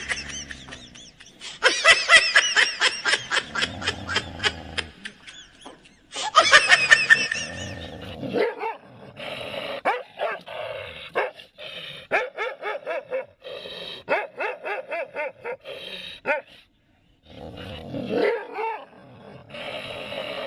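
Two dogs barking and growling at their own reflection in a mirror, with loud runs of rapid barks in the first eight seconds, then a string of shorter barks and growls.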